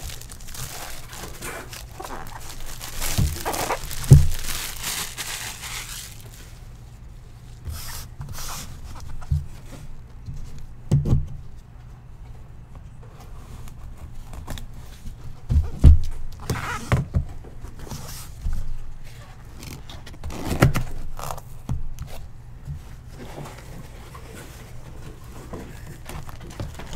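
Plastic shrink wrap crinkling and tearing off a cardboard box for the first few seconds. Then the box is cut open and handled, with scattered knocks and thumps of cardboard.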